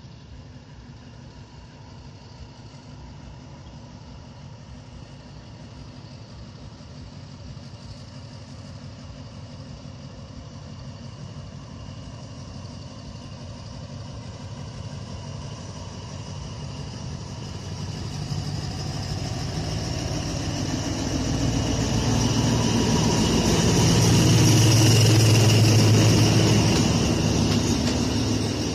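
Diesel locomotive hauling a passenger train approaching and passing. Its engine drone grows steadily louder and is loudest about 25 seconds in as the locomotive goes by, then eases as the coaches roll past.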